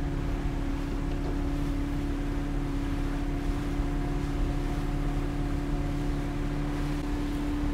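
A motorboat's engine running at a steady cruising speed, one constant hum, with wind and water rushing past the open boat.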